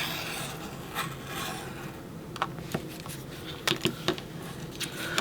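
A paper-cutting blade gliding around a plastic circle template in a Creative Memories cutting system, slicing a circle from paper: repeated rubbing, scraping swishes with a few small clicks.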